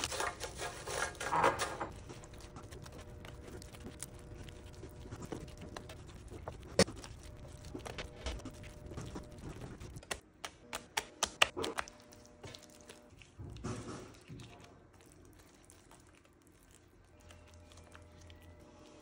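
Crinkling of a Cheetos snack bag as the puffs pour into a nonstick pan, then scattered light clicks and taps of kitchen handling, a cluster of them about halfway through.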